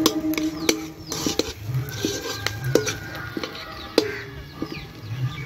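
Metal spatula scraping and knocking against a black iron kadai while scrambled egg is stirred, a handful of sharp clicks with the loudest about four seconds in. Birds chirp throughout.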